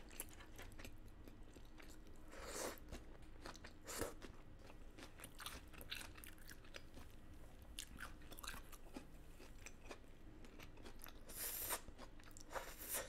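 A person chewing and biting saucy food eaten with the fingers, close to the microphone: faint wet mouth sounds and small clicks, with a few louder crunchy bites.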